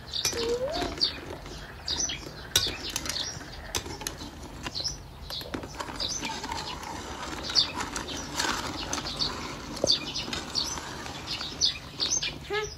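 Soapy water sloshing and splashing in a metal pot as a ladle and hands stir small plastic toy cars around, with frequent short knocks of the ladle and toys against the pot.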